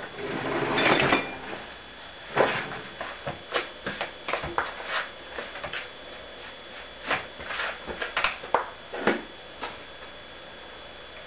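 A spoon stirring and scraping instant mashed potatoes in a bowl, with irregular clinks and knocks against the bowl's side. There is a short rushing noise at the start, and the knocking stops about ten seconds in.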